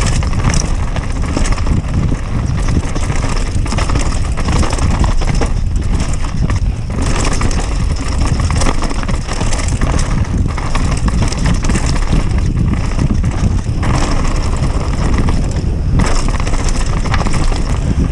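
Mountain bike descending a loose, stony dirt trail at speed: tyres crunching over gravel and the bike rattling and clattering, with heavy wind rumble on the microphone.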